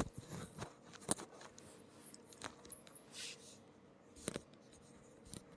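Faint, irregular clicks and taps, about half a dozen spread about a second apart, like small handling noises, over a faint steady hum.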